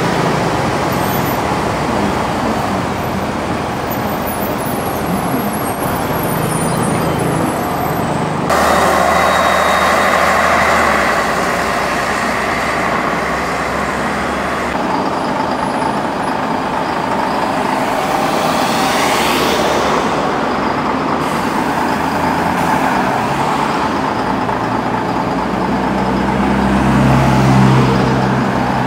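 Road traffic with city buses going past: diesel bus engines running over tyre and road noise, the sound changing abruptly a couple of times. Near the end a bus's engine grows louder as it passes close by.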